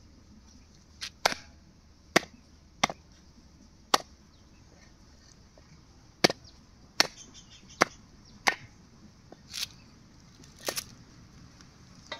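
Pork leg being chopped with a heavy knife: about a dozen sharp blows at irregular intervals, a few of them coming in quick pairs.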